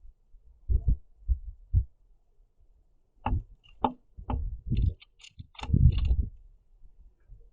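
A house sparrow on a platform bird feeder close to the microphone makes a few dull thumps and knocks. About three seconds in, a busier run of knocks mixed with short, sharp high sounds begins and lasts some three seconds.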